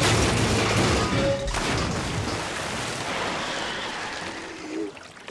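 A loud cartoon crash sound effect that hits suddenly at the start, its noisy tail fading away over several seconds, with background music.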